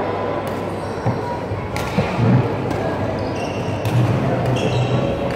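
Badminton play on a wooden hall court: sneakers squeaking in short high chirps, footsteps and a few sharp knocks of racket on shuttlecock.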